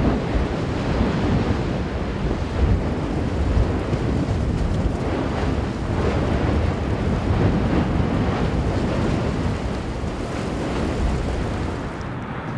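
Boiling lava lake churning, a steady rumbling rush of noise heavy in the low end, with wind buffeting the microphone.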